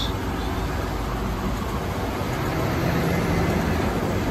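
Steady low rumbling noise of a petrol station forecourt, with a fuel dispenser pumping petrol through the nozzle into a car's tank.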